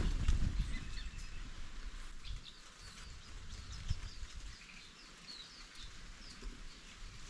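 Green-backed white-eyes calling with short, high chirps scattered throughout, over a low rumble that is loudest in the first second or so.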